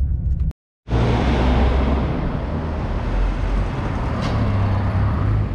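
A car driving, with a steady engine rumble and tyre and road noise. The sound drops out completely for a moment about half a second in, then comes back with a brighter hiss.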